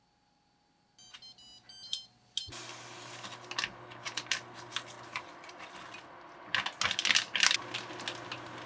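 Samsung induction cooktop beeping a few times as its touch controls are pressed, then a steady hum as it starts heating. Over the hum, a plastic bag crinkles and clicks as thawed soup broth is squeezed out into the pot.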